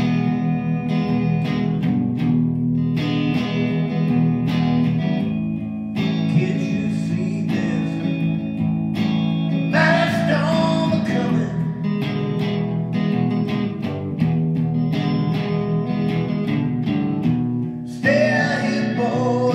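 Electric guitar played through an amplifier in a blues-rock song, with a steady rhythmic pulse, and a man singing at times.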